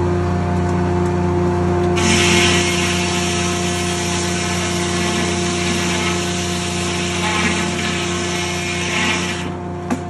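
Corley circle sawmill's large circular blade cutting through an eastern red cedar log to square it up. A loud hiss of the cut starts about two seconds in and stops just before the end, over the steady hum of the running mill. A single knock comes right at the end.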